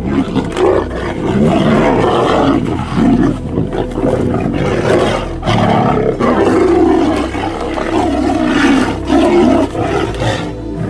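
Tigers roaring in a fight, loud repeated bouts with brief breaks, ending shortly before the close.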